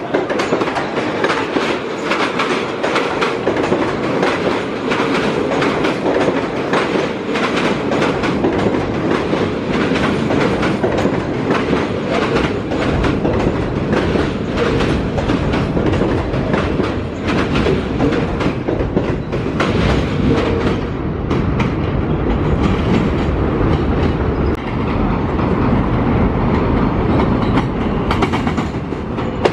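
New York City subway train running past at close range, its steel wheels giving a rapid clickety-clack over the rail joints with a steady rumble.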